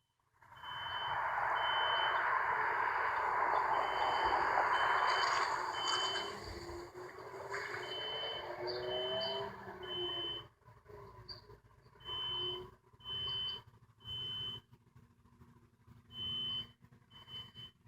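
Building fire alarm sounding in a three-beep pattern: three short high beeps, a pause, then again, repeating about every four seconds. Through the first half a vehicle passes with a loud rushing noise and an engine note that rises, then fades.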